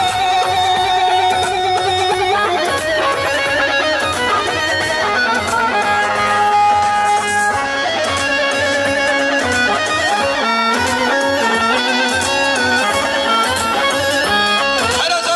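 Loud instrumental folk music with a held, wavering melody line over a steady accompaniment, with no singing.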